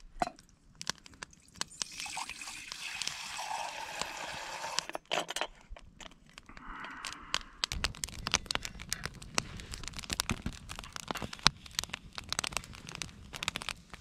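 Water poured from a collapsible silicone bottle into a titanium mug, a rushing splash lasting a few seconds. Then a wood campfire crackles with frequent sharp snaps.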